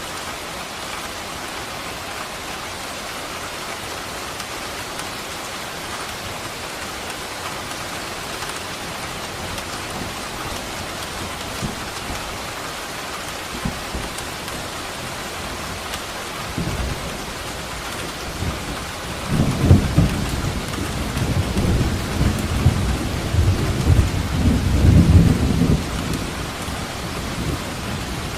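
Steady rain falling throughout. A low thunder rumble starts a little past halfway, swells into a loud, rolling peak for several seconds, and dies back into the rain near the end.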